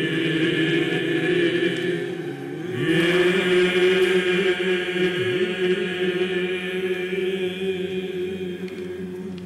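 Byzantine chant sung by a choir of male cantors, several voices holding long notes together. One phrase fades about two and a half seconds in, and a new, louder phrase begins just before three seconds.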